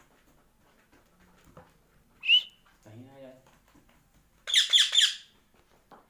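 Indian ringneck parakeet calling: one short, sharp whistled chirp about two seconds in, then a loud, harsh burst of three quick squawks near the end.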